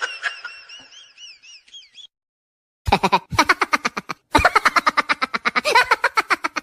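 Comedy sound effects: a wavering, wobbling whistle that fades out, then after a brief gap a fast rattling pulse sound in three bursts, the last one the longest.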